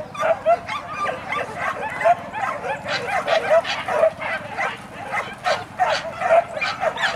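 A pack of boar-hunting dogs yelping and barking together: a dense, unbroken stream of short high yips from many dogs at once, the excited noise of hunting dogs held and then let loose.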